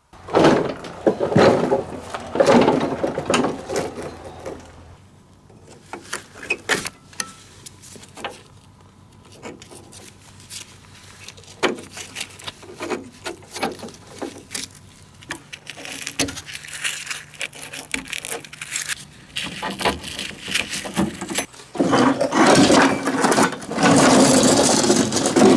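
Rusted steel cutting deck of an old Wheel Horse ride-on mower being unhooked and pulled out from underneath. Metal clanks, rattles and scrapes, loudest in the first few seconds and again near the end as the deck is dragged out across gravel.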